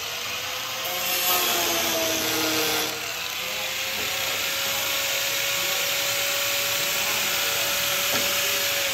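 Corded angle grinder running, its disc sanding down a car hood, with a steady motor whine under a gritty grinding hiss. The grinding is louder for the first few seconds, then settles, and the whine stops right at the end.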